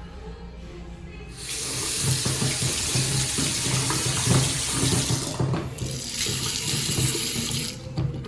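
Water running steadily, as from a tap, starting about a second in, faltering briefly midway, and stopping shortly before the end.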